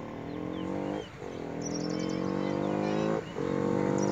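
Yamaha YZF-R15 V2's single-cylinder engine, fitted with an aftermarket HP air filter, accelerating hard toward the listener. The revs climb in each gear, broken by quick upshifts about a second in and again about three seconds in, and the sound grows louder as the bike nears. A bird chirps briefly.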